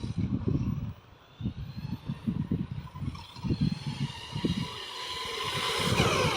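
FTX Vantage 4WD RC car running at speed along the street, its motor whine growing louder and rising in pitch near the end as it comes closer. Irregular low rumbles come and go throughout.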